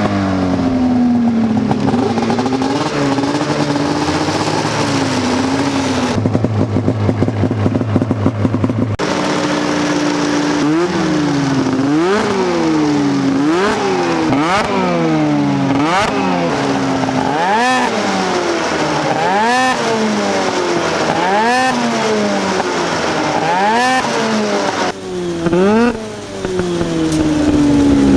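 Arctic Cat M7 snowmobile's two-stroke twin engine running loud through an aftermarket exhaust can. It idles unevenly at first, then from about ten seconds in it is revved again and again, each rev climbing sharply and dropping back to idle.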